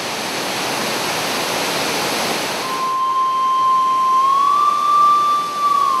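Steady heavy rush of the large Pulapanzak waterfall. About halfway through, a steady high tone comes in over it, rises slightly in pitch a second later and holds to the end.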